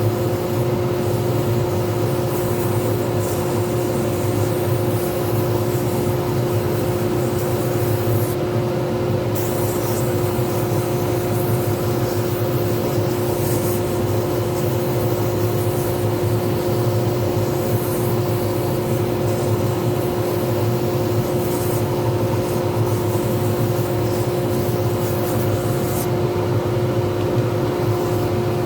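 Lathe running steadily with a constant whine while a resin pen blank is worked on it, with an on-and-off high hiss as the blank is worked.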